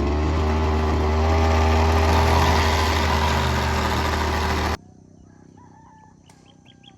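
Engine of a handheld grass cutter (brush cutter) running at high, steady revs, then stopping abruptly nearly five seconds in. Faint bird and insect chirps follow.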